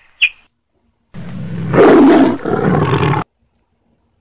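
An animal-roar sound effect, about two seconds long, starting about a second in and cutting off abruptly, after a short click near the start.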